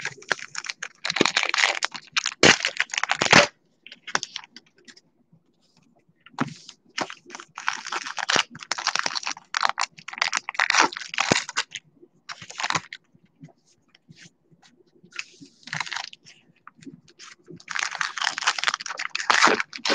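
2020 Topps Gypsy Queen baseball cards being flipped through by hand: quick papery clicks and slides of card stock against card, in several bursts of a second or more with short pauses between.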